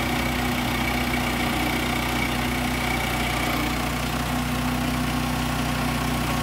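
An engine running steadily at idle: an even hum that holds the same speed throughout.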